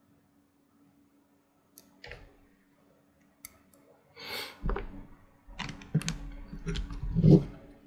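Hands handling the CPU cooler's small metal mounting screws and bracket parts: scattered sharp clicks, then a busier run of clicks and light knocks in the second half, the loudest near the end.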